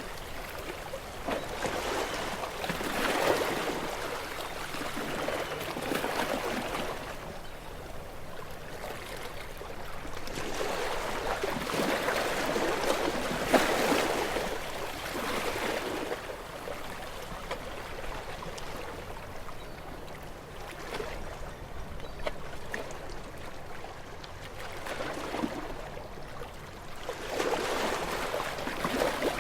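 Sea waves breaking against rocks, the water noise swelling and easing in irregular surges every few seconds.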